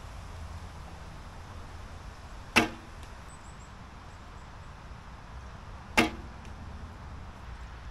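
Traditional recurve bow shot twice with a finger release: two sharp bowstring thwacks about three and a half seconds apart, each followed about half a second later by a faint tick.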